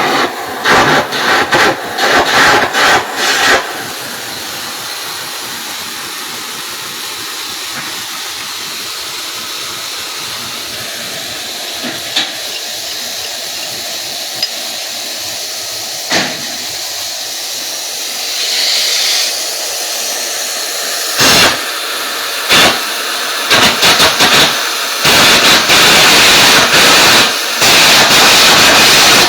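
Electric arc welding: the arc hissing and crackling steadily through the middle, with loud, choppy, stuttering bursts in the first few seconds and again over the last several seconds.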